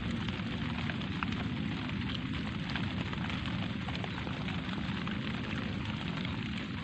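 Light rain falling steadily: an even hiss dotted with small drop ticks, over a steady low rumble.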